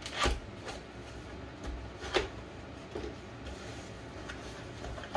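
A small cardboard box being opened by hand: flaps pulled apart and cardboard scraping, with a sharp, louder sound just after the start and another about two seconds in.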